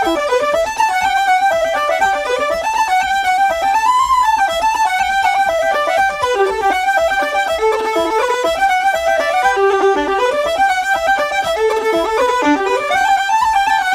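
Background music: a fast fiddle tune, quick running notes rising and falling.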